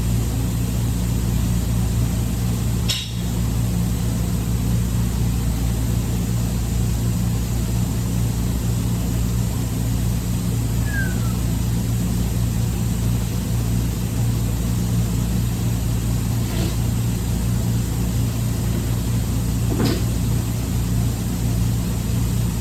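Steady low hum of running machinery, with a single sharp knock about three seconds in and a couple of faint ticks later on.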